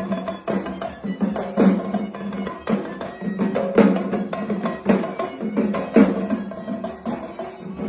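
Music with hand-drum percussion: sharp drum strokes in an irregular rhythm over sustained pitched tones.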